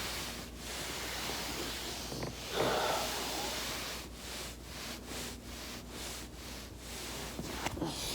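Rustling and hiss of a person working their body over a foam roller, with a louder rustle about two and a half seconds in and a quick, regular pulsing in the second half.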